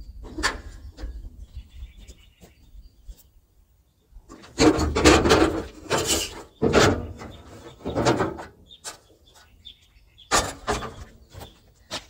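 Rear engine door and latch of a John Deere 324E skid steer being unlatched and swung open, in several loud clanks, rattles and scrapes of metal over about six seconds, the loudest a little past the middle.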